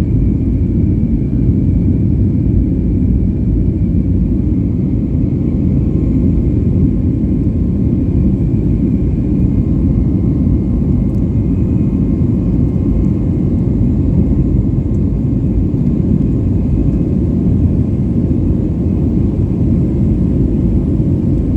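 Boeing 737 in flight just after takeoff: a loud, steady rumble of jet engines and airflow, with a faint steady whine above it.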